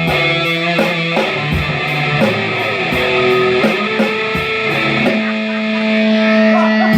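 Guitar music: a run of plucked notes that change about every half second, then one chord held from about five seconds in.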